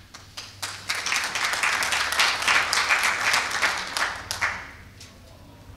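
Audience applauding, the clapping building up within the first second and dying away about four and a half seconds in.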